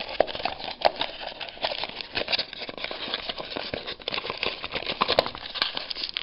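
Plastic wrap on a trading-card pack crinkling and crackling as it is handled, with a few sharper clicks.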